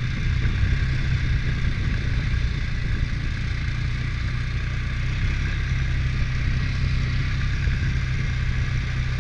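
ATV engine running steadily at low revs.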